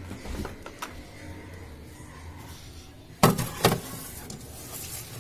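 Light knocks near the start, then two loud thuds about half a second apart a little over three seconds in, as a covered bowl is put into a refrigerator and its door is shut.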